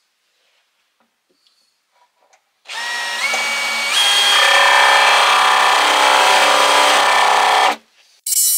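Cordless drill running into a solid oak worktop in one long burst about three seconds in. Its whine steps up in pitch twice as the trigger is squeezed harder, then it stops suddenly and briefly starts again at the very end.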